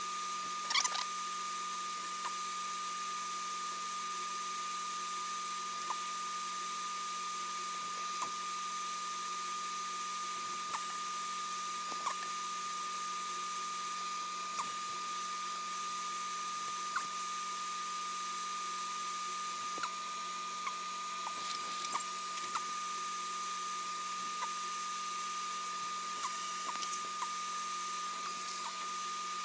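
A small electric motor, like a bench blower or fan, running steadily with a constant high whine over an airy hiss, with faint light ticks now and then.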